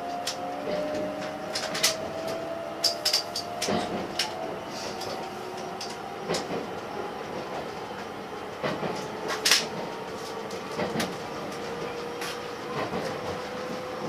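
Interior of a JR West 289 series electric limited express car as the train pulls away and gathers speed: the motors' whine rises slowly in pitch. Irregular sharp clacks of the wheels over rail joints and points run through it.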